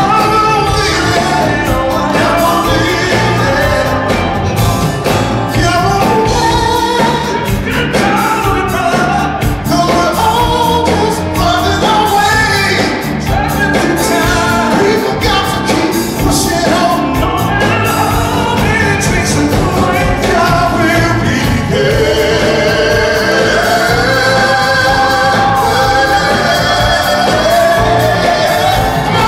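Live R&B/soul performance: male lead vocals singing over a full band with drums, heard from the audience in a large hall.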